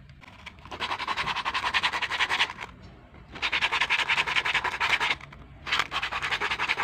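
Sandpaper rubbed rapidly back and forth across a small plastic bottle cap, sanding down its pierced face. It comes in three bursts of quick strokes with short pauses between.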